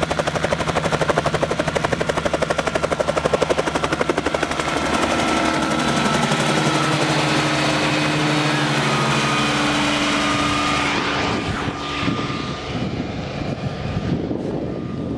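A Bell 47 helicopter's two-bladed rotor chopping fast and evenly over the drone of its piston engine as it lifts off and climbs overhead. The sound fades over the last few seconds as it moves away.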